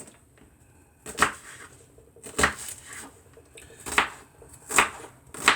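A knife chopping on a cutting board, about five separate sharp strikes roughly a second apart, while an onion is cut up for the salad.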